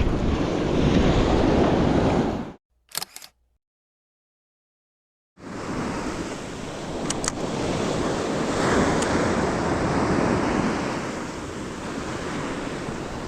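Surf washing on the shore, a steady rushing noise with wind on the microphone. A couple of seconds in the sound cuts out completely for about three seconds, broken only by a short click, then the surf comes back.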